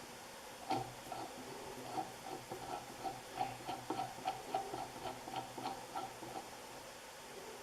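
Light clicks and taps with a faint metallic ring, a dozen or so spread irregularly over about five seconds: small metal fan hardware, such as the bottom nut, being handled.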